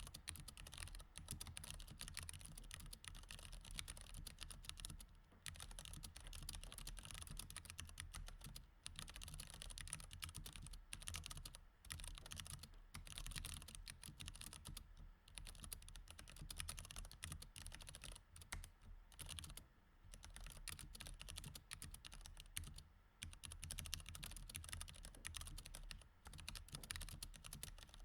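Mechanical keyboard with Cherry MX Red linear switches typed on continuously: a fast, dense run of key clicks that breaks off for brief pauses every few seconds.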